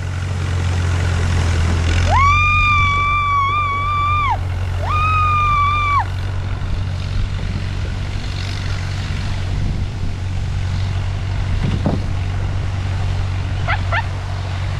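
Two long, high-pitched whoops from a person riding the towed sled, the first about two seconds in and lasting over two seconds, the second shorter, each sliding up at the start and then held. Under them runs a steady low rumble from the towed ride over snow.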